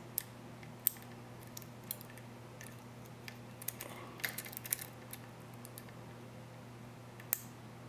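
Small metallic clicks and scrapes of a lock pick working the security-pinned pin stack of a Master Lock 6270 puck padlock under a tension wrench, with a quick run of ticks near the middle and a sharper single click near the end.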